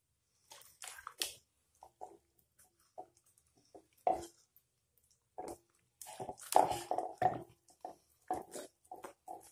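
Wet squelching of hands kneading and rubbing a whole raw chicken coated in thick chermoula spice paste, in short irregular bursts that come thickest about six to seven and a half seconds in.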